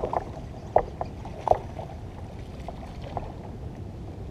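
A few short splashes and knocks at a kayak while a hooked bass is fought beside the boat, over a steady low hiss.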